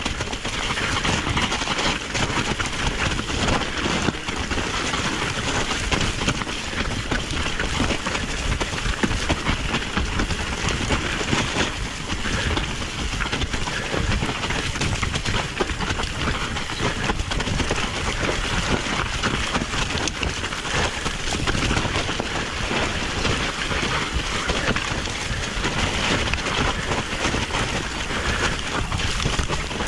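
Steady rushing noise of a fast downhill ride: wheels rolling over a rough, snowy track, with wind on the microphone.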